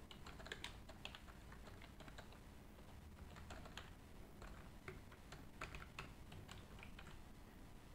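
Faint typing on a computer keyboard: irregular keystroke clicks as a line of code is entered.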